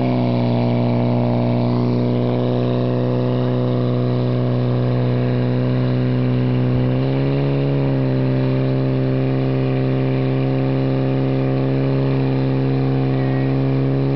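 Portable fire pump's engine running at high revs under load while it pumps water through the attack hoses. It is a steady, even note that shifts slightly in pitch about seven seconds in.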